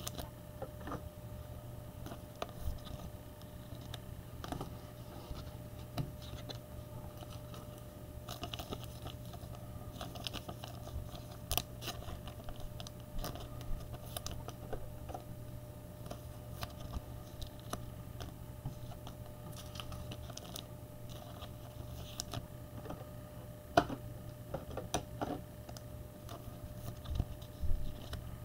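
Trading-card pack wrappers crinkling and cards being handled and shuffled, in scattered soft crackles and clicks over a steady low hum.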